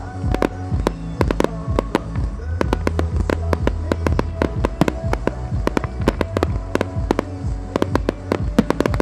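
Aerial firework shells bursting in rapid succession, several sharp bangs a second, over a music soundtrack with heavy, boomy bass.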